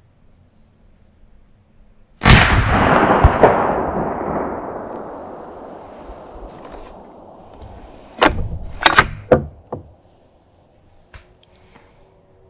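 A single rifle shot from a Sako S20 bolt-action rifle in .308 Winchester about two seconds in, its report rolling away and fading over several seconds; the shot drops a roe doe. About six seconds later comes a quick run of sharp clicks and knocks.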